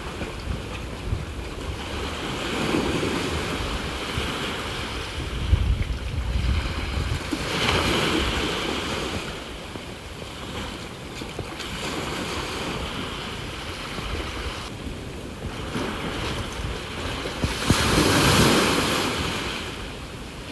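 Sea waves surging and washing ashore, the hiss swelling and ebbing about four times, the loudest surge near the end, with wind buffeting the microphone.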